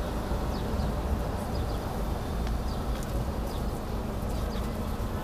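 Outdoor background: a steady low rumble, like distant traffic or wind on the microphone, with scattered short, faint chirps of small birds.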